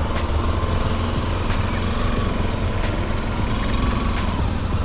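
Motorcycle engines running steadily, with a continuous low rumble.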